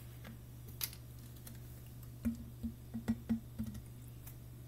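Light, irregular clicks and taps, mostly between about two and four seconds in, as the cap is twisted off a small bottle of vanilla extract before pouring, over a faint steady low hum.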